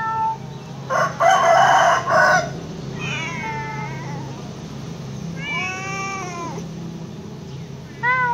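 Domestic cat meowing several times, the calls falling or arching in pitch, with a short meow near the end. About a second in comes a louder, harsher call lasting over a second.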